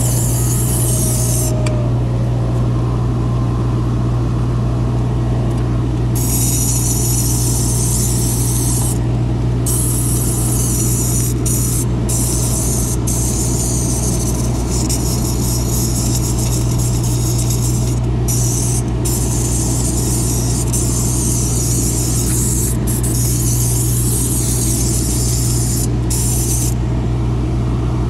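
Handheld steam cleaner wand hissing in long blasts that start and stop abruptly as the trigger is pulled and released, over a steady low hum. The hiss stops near the end.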